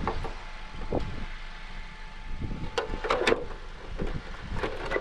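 Wind rumbling on the microphone, with a scatter of short clicks and crackles as a clear plastic RC car body is handled and pressed onto its chassis, most of them bunched about three seconds in.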